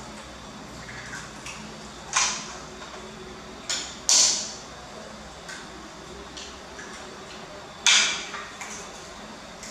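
Metal spoon scraping the skin off a raw potato: a few short, sharp scrapes, the loudest about two, four and eight seconds in, each trailing off quickly.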